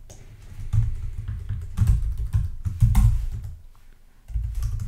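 Typing on a computer keyboard in short bursts of key clicks, with dull low thuds under the keystrokes.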